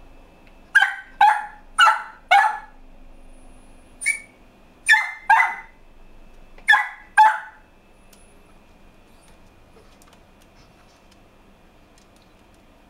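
Pet dog barking about nine times in short, sharp runs, then stopping, set off by the sound of the fireworks.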